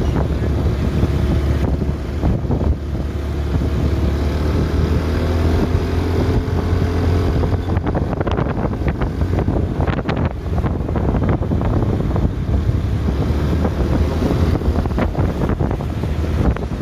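Wind buffeting the microphone over a steady low vehicle rumble, with faint wavering tones for a few seconds near the middle.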